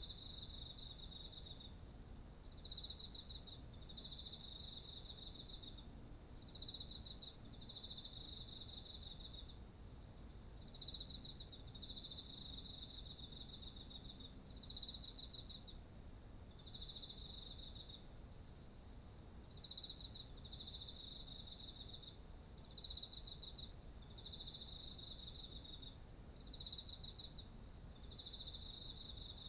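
Chorus of autumn insects: one steady, unbroken high trill, over which two lower pulsed trills repeat in phrases of about two to three seconds each.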